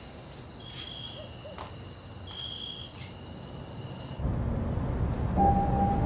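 Night ambience: a steady high insect chirring with a short high call heard twice. About four seconds in it cuts abruptly to a louder low rumble, joined by a steady hum, like a distant engine.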